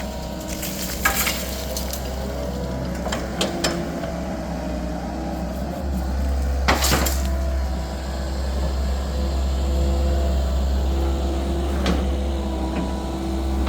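Komatsu excavator running under load, its diesel engine drone rising about six seconds in, with several sharp metal clanks of the bucket digging among rocks, the loudest about seven seconds in.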